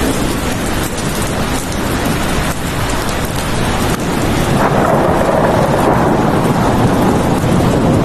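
Steady heavy rain, with a low rumble that swells about halfway through and holds to the end.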